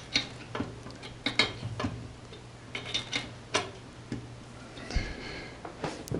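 Heating pipes cracking and ticking: sharp clicks at uneven intervals, roughly one or two a second, over a steady low hum.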